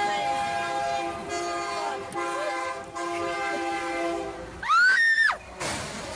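Diesel locomotive's air horn sounding one long warning blast, several notes at once, for a semi truck stopped on the grade crossing ahead of it; the blast cuts off about four and a half seconds in. Right after it comes the loudest sound, a short high-pitched cry that rises and falls in pitch.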